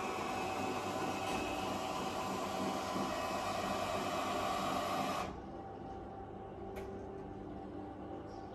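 Electric motors of a cabinet's motorized pull-up projector screen and projector drawer running with a steady whine. About five seconds in the whine drops to a quieter hum, and a single click follows a little later.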